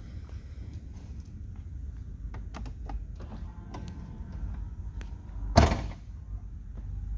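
Trunk lid of a Mercedes-AMG C63 S coupe closing: a few light clicks, a faint steady whine as the lid lowers, then a single loud thud as it latches about five and a half seconds in.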